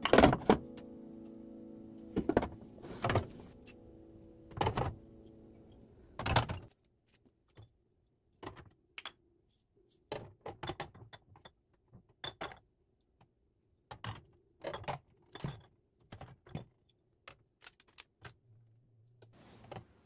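Glass jars with metal lids and glass bottles clinking and knocking as they are set down and moved on refrigerator shelves: a string of short, sharp clinks and taps in irregular clusters. Soft background music fades out about six seconds in.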